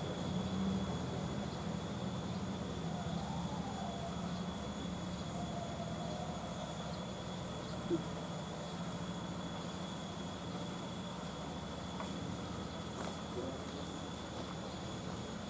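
Steady high-pitched insect chorus, a fast pulsing trill of crickets, with a low hum beneath it and a single sharp click about halfway through.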